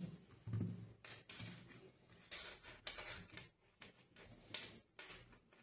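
Handling noise from a plastic and rubber headlamp being turned over on a wooden table: irregular light knocks, clicks and rubbing, with a soft thump about half a second in.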